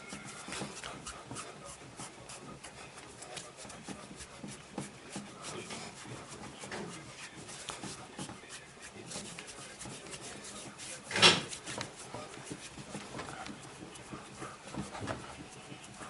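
Hands rubbing and pressing on a patient's body during a chiropractic massage, with small clicks and rustles throughout. About eleven seconds in comes one sharp, loud smack.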